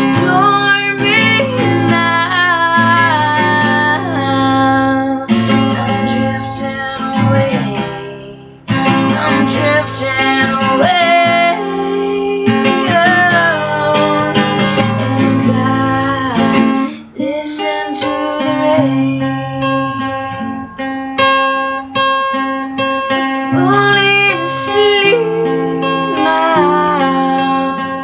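A woman singing a country/soft-rock song over a strummed acoustic guitar, with two brief dips about a third and two-thirds of the way through.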